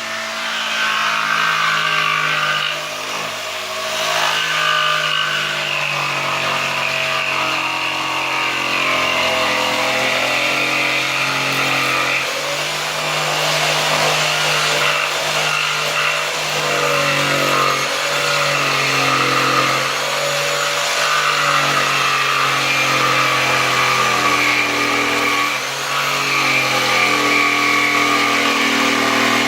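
Electric jigsaw running steadily as it cuts wood, its motor pitch shifting now and then with the load.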